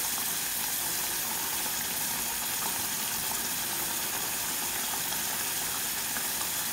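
Blended chili paste sizzling and bubbling steadily in hot oil in a saucepan, frying into a shrimp-paste sambal.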